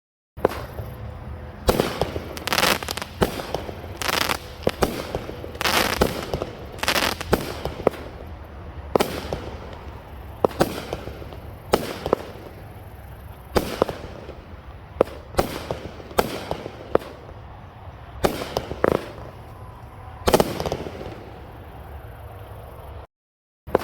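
Elite Fireworks H-Town Madness, a 16-shot 200-gram consumer firework cake, firing: a rapid, irregular series of sharp bangs from the launches and shell breaks over a steady crackling hiss. The sound drops out for a moment near the end and resumes.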